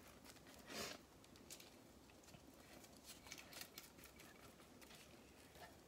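Near silence with faint, short scrapes and soft clicks of a spatula working banana bread batter out of a glass mixing bowl into a metal loaf pan; the loudest scrape comes about a second in.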